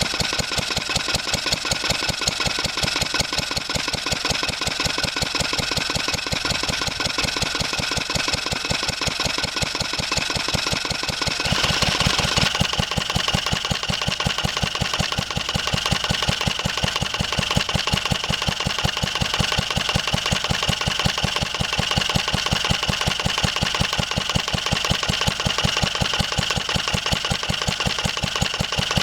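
1954 Wolseley WD8 stationary engine running steadily off load with an even, regular firing beat, being warmed up to heat its oil. About twelve seconds in the sound changes and a higher ringing note comes in over the beat.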